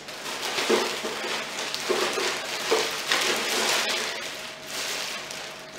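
Thin plastic shopping bag rustling and crinkling irregularly as it is handled and items are pulled out of it.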